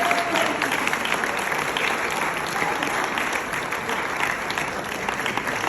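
Audience applauding: many hands clapping in a dense, steady patter that slowly eases off.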